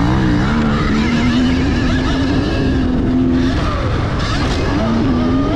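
Dirt bikes racing on a motocross track: an engine's pitch rising and falling over steady wind and tyre noise.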